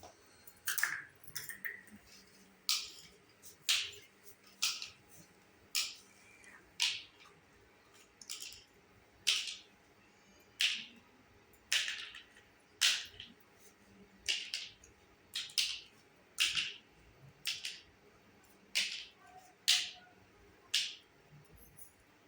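Sharp little clicks and taps of small hard plastic toy kitchen pieces being handled, about one a second, evenly spaced.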